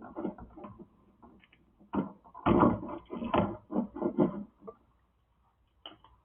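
Irregular knocks, clicks and rustling from hands handling electrical wires and parts at a light-switch box. The sounds go quiet for about a second near the end.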